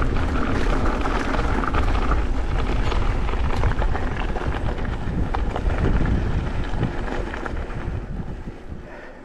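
Wind buffeting the microphone over the rumble of mountain-bike tyres on a dirt trail and the rattle of the bike, growing quieter over the last couple of seconds.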